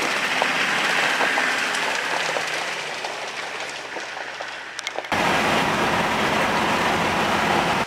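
Rushing river water, a steady roar. About five seconds in it cuts abruptly to a louder, fuller rush.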